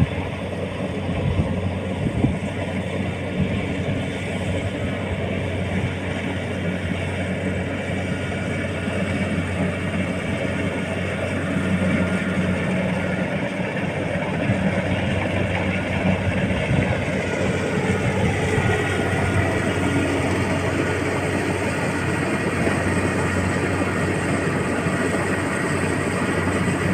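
Rice combine harvester running steadily as it harvests paddy: a continuous engine and machinery hum.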